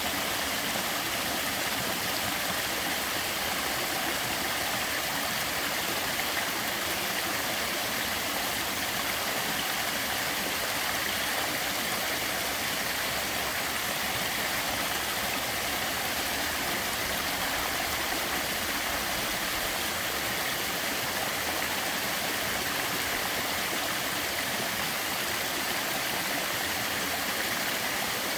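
Small waterfall with a modest flow, its water falling and splashing in a steady, even rush.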